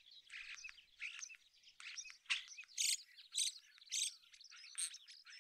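Common starling singing: a rambling run of varied whistles, chirps and rattling notes, with louder harsh bursts about twice a second in the latter half.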